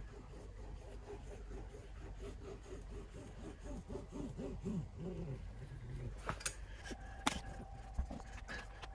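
Caulking gun squeezing out a bead of high-heat RTV silicone: a faint wavering squeak midway, then three sharp clicks from the gun near the end.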